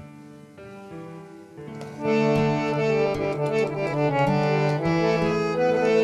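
Harmonium playing the instrumental opening of a bhajan in Raag Kedar, with sustained reed chords. It is soft at first and swells much louder about two seconds in, where a few light percussive taps sound over it.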